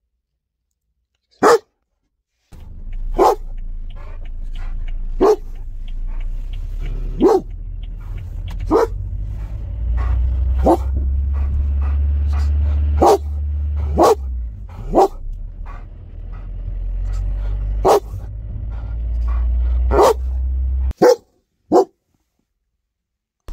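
A dog barking in single loud barks, about a dozen of them, spaced one to three seconds apart. A steady low rumble runs underneath for most of the time and stops abruptly near the end, where the barks come in a quicker pair.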